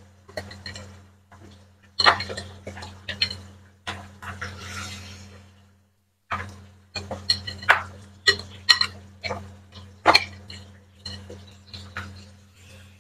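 Metal spoon repeatedly clinking and scraping against a glass mixing bowl as marinated chicken legs are scooped out, with hot oil sizzling briefly about four seconds in as pieces go into the wok.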